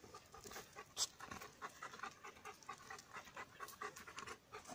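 Dog panting close by in a quick run of short breaths, with one sharp click about a second in.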